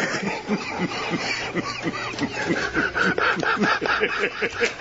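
People laughing hard together in quick, repeated bursts of about four or five a second.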